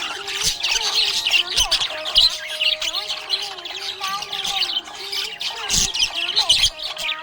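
Small pet parrots chattering, a dense run of rapid high chirps and squawks with no break.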